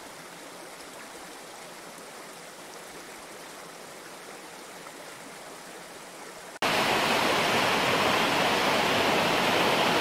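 A soft, steady rushing noise that switches abruptly, about two-thirds of the way through, to much louder rushing water: a shallow rocky stream pouring over a small cascade.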